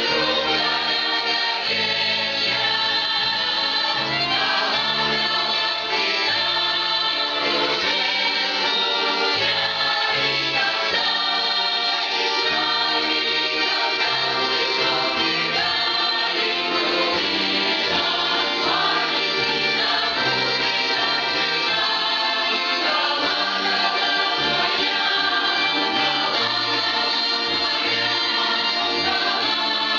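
Russian folk-song choir singing in full chorus, with low accompaniment notes moving in steps beneath the voices.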